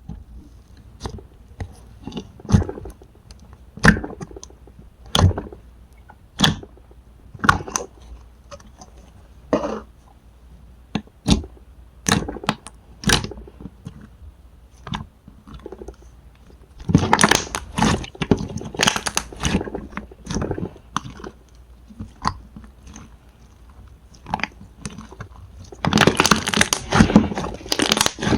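Slime being worked by hand, giving sharp sticky pops and clicks, one at a time. Twice, once about the middle and again near the end, these run together into longer spells of dense crackling.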